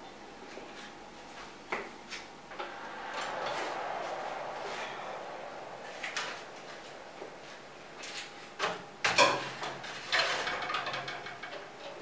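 A built-in kitchen oven opened and a metal baking tray of strudel pushed in onto its rack. A few small clicks and a soft rushing noise come first, then sharp metal knocks and a scraping rattle in the last few seconds as the tray goes in.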